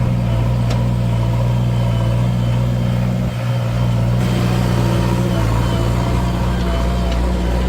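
Heavy diesel engine of a JCB machine running steadily with a low, even drone, dipping briefly about three seconds in.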